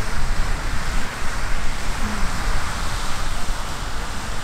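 Riverside Geyser erupting: a steady rushing hiss of its water jet spraying and splashing into the Firehole River, with a low rumble of wind on the microphone.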